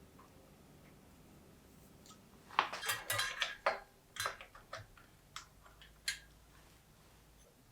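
Small metal bicycle parts and tools clinking and rattling while being handled: a quick burst of clatter about two and a half seconds in, then a few single clicks spaced roughly half a second apart.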